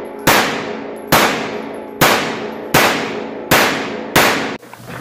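Six 9mm shots from a Glock 17 Gen 5 MOS pistol fired at a steady pace, a little under a second apart, each ringing off the walls of an indoor shooting range. The shooting stops abruptly near the end.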